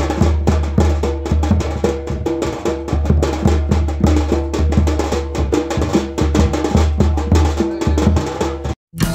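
Sambalpuri folk drumming: a large barrel drum (dhol) beaten fast with a stick, deep booms mixed with sharp stick clicks, with a stepping higher melody line above it. It stops abruptly near the end.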